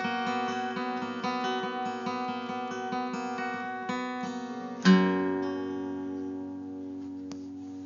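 Acoustic guitar music: a steady run of repeated notes, then a loud final chord about five seconds in that rings out and slowly fades.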